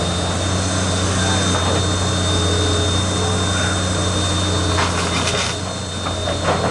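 Engine of heavy demolition machinery running at a steady low drone, with a brief burst of crackling about five seconds in.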